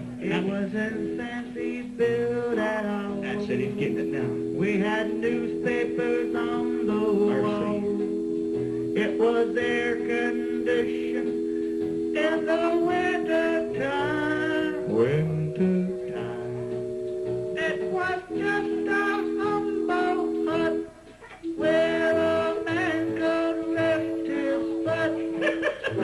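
A man singing a song over backing music of long held chords.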